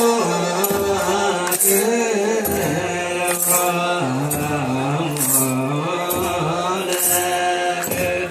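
Ethiopian Orthodox wereb chant: voices singing a slow, melismatic line with long held and gliding notes. Bright metallic jingling, consistent with tsenatsil sistrums being shaken, recurs about every two seconds.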